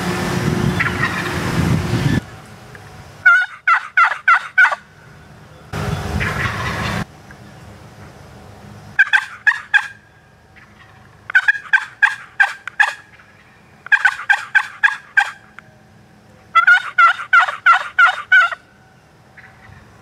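Osceola wild turkey gobbler gobbling five times, each gobble a quick rattling run of notes, two to three seconds apart. Two bursts of noise come before the second gobble.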